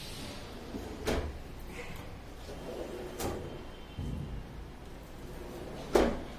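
A deep kitchen drawer holding a wire plate rack sliding shut on its runners, with a few light knocks along the way and a single loud thump as it closes near the end.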